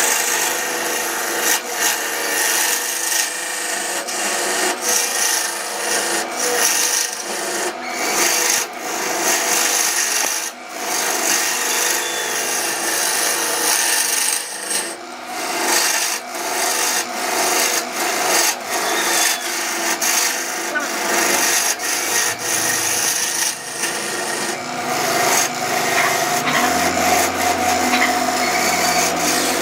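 Wood being turned on a lathe: a cutting tool scraping against the spinning wood in a steady, rough rasp with frequent small clicks. A low hum joins in during the last few seconds.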